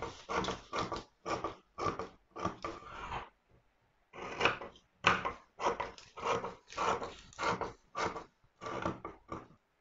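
Scissors cutting through a paper dress pattern, slashing along a drafted line: a run of short cutting strokes, about two or three a second, with a pause of about a second a third of the way in.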